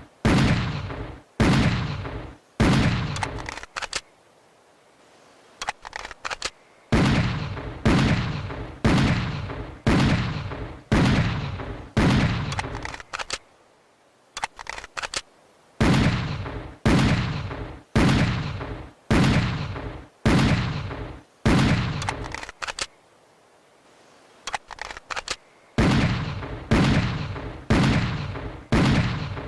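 Schofield .45 revolver firing in runs of shots about three-quarters of a second apart, each shot trailing off in a short ringing tail. Every several seconds the shooting breaks off for a pause of two or three seconds that holds only a few faint clicks.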